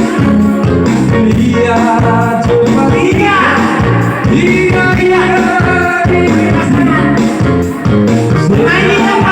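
A song with singing and a strong, steady bass beat, played loud through a four-way PA sound system being tested.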